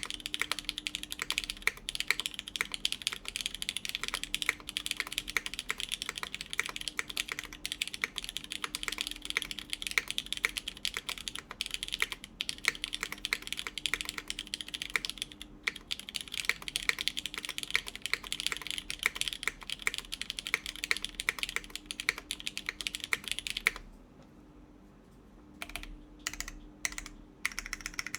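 Steady fast typing on a Beetle 60 mechanical keyboard with lubed Cherry MX Black linear switches, an aluminum half plate and GMK keycaps, a dense run of keystrokes. Near the end the typing stops for about two seconds, then resumes in scattered strokes.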